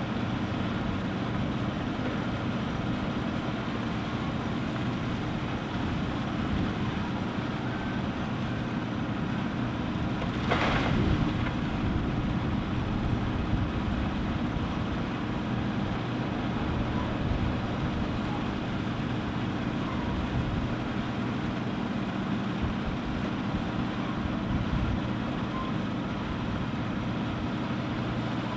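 Diesel engines of a Terex Finlay 883+ mobile screener and a New Holland Kobelco E305C excavator running steadily as the screener is loaded with limestone. A short burst of rock noise about ten seconds in, as a bucketload is tipped into the screener's hopper.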